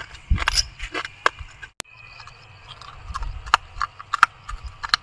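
Broken bottle glass crunching and clicking: a string of short, sharp cracks at uneven intervals, with a brief break a little under two seconds in.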